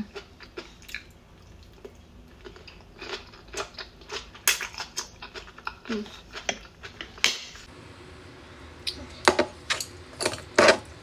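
Close-miked chewing of okra dipped in ketchup, with wet mouth clicks and small crunches. Several louder sharp clicks come near the end.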